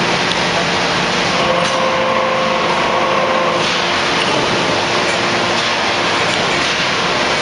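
Hydraulic open-die forging press running: a steady mechanical din with a pitched whine that comes in about a second and a half in and fades about two seconds later.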